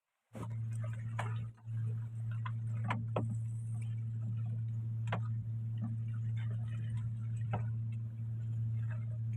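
A steady low hum with a single held tone, as of a motor running, with scattered light clicks and ticks over it. It cuts in suddenly a moment in and dips briefly about one and a half seconds in.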